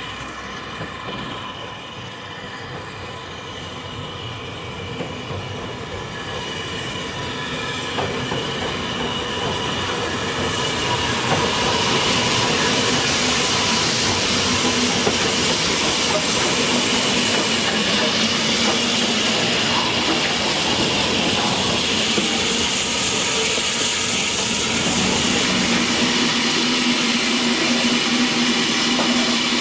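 BR Standard Class 4MT 4-6-0 steam locomotive No 75029 and its train of coaches approaching and running past on the track. The rolling-stock noise grows steadily louder over the first ten seconds or so, then stays loud as the coaches go by.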